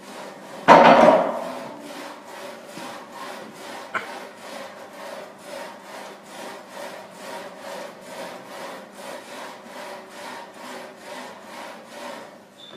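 Leg press machine sled sliding up and down its rails in quick single-leg reps, a steady rasping rhythm of about two strokes a second. There is one loud burst about a second in.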